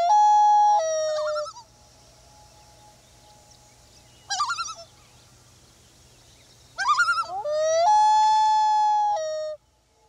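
Common loon calling: two long calls, each sweeping up into a held note that drops at the end, with a short wavering call about four seconds in.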